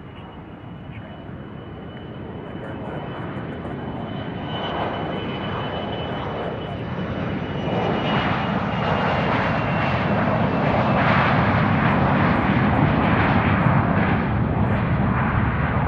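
Gulfstream business jet's twin rear-mounted turbofans at takeoff power on the takeoff roll. The roar grows steadily louder as the jet accelerates past and lifts off near the end. A thin high whine fades out about halfway through.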